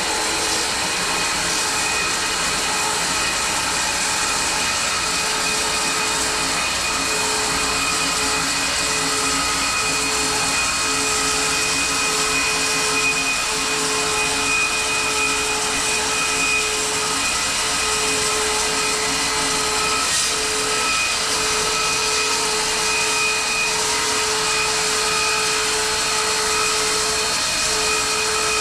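Home-built bandsaw mill running steadily with a constant whine, its blade sawing through a weathered maple log.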